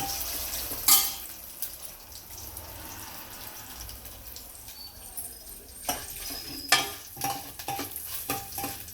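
Tempering spices (mustard seeds, curry leaves, asafoetida) sizzling in hot oil in a pot, with a spoon stirring and knocking against the pot: one sharp knock about a second in and several more in the last three seconds.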